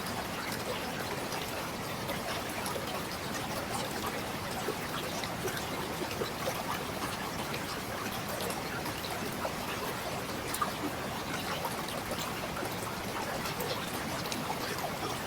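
Mountain river flowing over rocks: a steady rush of water with many small splashes and trickles.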